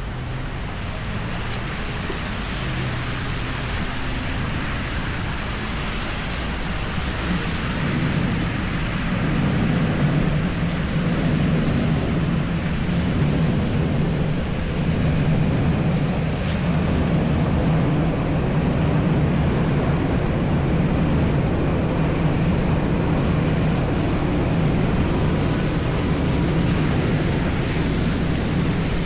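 Steady hiss of heavy rain on a city street with a low traffic hum, the hum growing a little stronger about eight seconds in.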